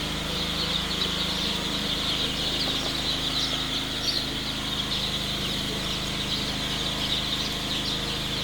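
A brooder full of two-day-old chicks peeping without a break, a dense chorus of many overlapping high cheeps, over a steady low hum.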